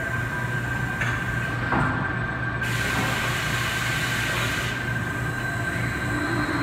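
Robotic drilling and countersinking cell running: a steady machine hum with a high, steady whine over it. There are a couple of clicks about a second in, then a rushing hiss for about two seconds midway.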